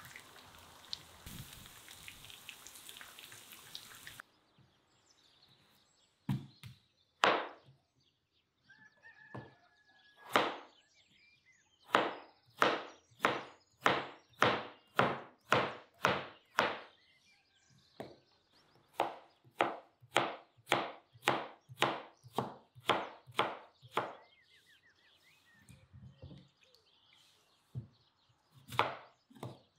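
Kitchen knife chopping through a peeled onion and then potatoes onto a plastic cutting board: a steady run of sharp knocks, about three strokes every two seconds, broken by short pauses. It is preceded by a few seconds of steady hiss.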